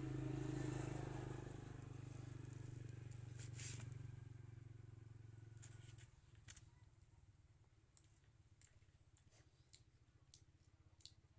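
A faint, steady low hum that cuts off about halfway through, followed by faint scattered clicks and taps.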